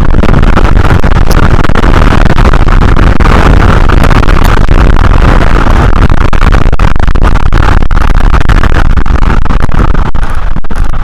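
Strong wind blasting the nest camera's microphone: a loud, steady roar with no let-up.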